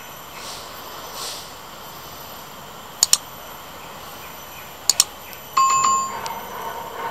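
Subscribe-button animation sound effects over a steady background hiss: a quick double mouse-click, another double click about two seconds later, then a short bright bell ding that rings out briefly.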